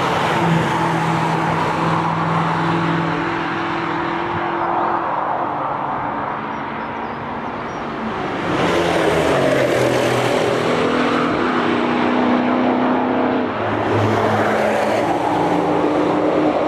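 Several cars driving fast along a race track, their engine notes overlapping at different pitches. The sound grows louder about halfway through as the cars come closer, and again near the end.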